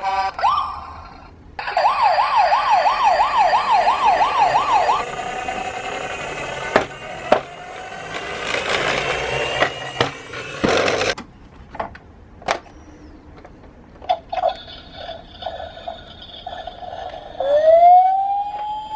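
Toy police car's electronic siren: a fast warbling yelp of about three sweeps a second, then a stretch of rattling noise with a few sharp knocks, then short repeated beeps and, near the end, a tone that rises and holds as a wail.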